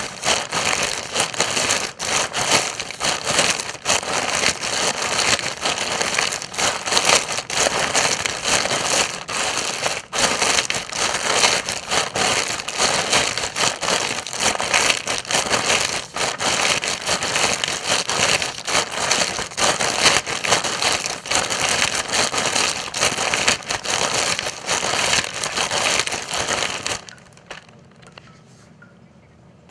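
Footsteps crunching through dry leaf litter: a dense, continuous crackle and rustle of leaves underfoot. It stops a few seconds before the end, leaving only a quiet background.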